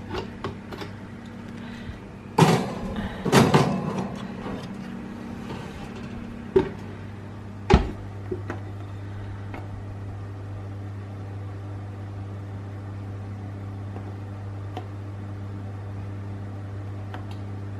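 Electric oven running with a steady low hum. A burst of clattering comes about two and a half seconds in, followed by two sharp knocks a few seconds later, as the oven and its door are handled.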